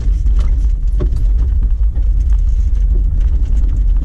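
Jeep Wrangler driving along a rough dirt track, heard from inside the cab: a steady low rumble of engine and tyres, with scattered clicks and knocks from gravel and rattling.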